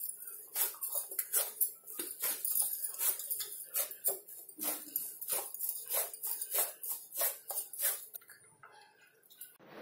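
Hands kneading soft, steamed rice-flour dough in a steel plate: a quick, uneven run of sticky squishes and pats against the metal, mixed with the clinking of glass bangles on the wrists. The kneading stops about eight seconds in.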